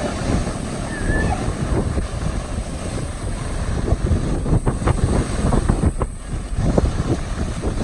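Ocean surf breaking and washing up a beach, with wind buffeting the microphone.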